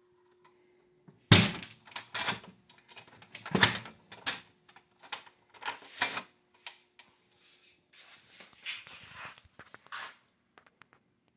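Knocks and clunks of a 1970s–80s Bally slot machine's front cabinet being swung shut and latched, the loudest about a second in and another strong one a couple of seconds later, over a faint steady hum. A soft rustle follows near the end.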